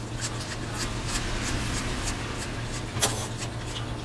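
Close-miked handling of a bowl of eggplant-sauce noodles: a steady rustling hiss with small clicks, and one sharper click about three seconds in, over a low steady hum.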